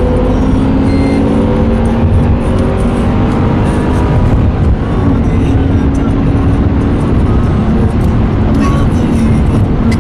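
Engines of a 2007 Chevrolet Caprice and a modified Mercury Marauder running hard at speed in a race. The engine note climbs slowly over the first few seconds, then holds steady and loud.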